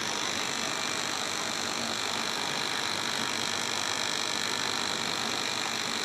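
Puffed-snack (pola) plant machinery running with a steady, even mechanical noise: the rotating masala flavouring drum and its spring-mounted vibratory feeder at work.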